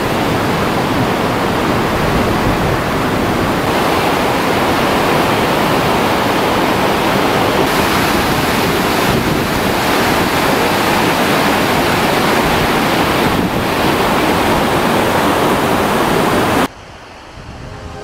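Loud steady rush of glacial river rapids churning through the narrow lava-rock gorge of Barnafoss. It cuts off abruptly near the end, and soft music begins.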